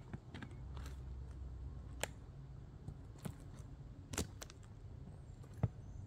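Footsteps on a forest trail: irregular crunches and small snaps of dry leaves and twigs underfoot, roughly one every second, over a low steady rumble.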